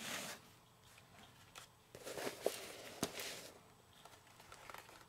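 Handling noise of a jump starter's air-compressor hose: soft rustling with a few sharp clicks, loudest about two to three seconds in.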